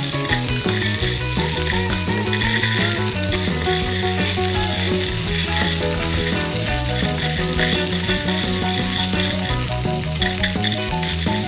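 A steady frying sizzle over toy stir-frying of plastic beads in a toy pan. A light background tune plays throughout.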